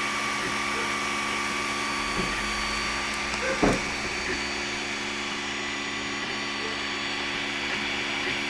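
Creality Ender 5 Plus 3D printer running a print: a steady hum of fans and stepper motors with several held tones. A single knock comes about three and a half seconds in.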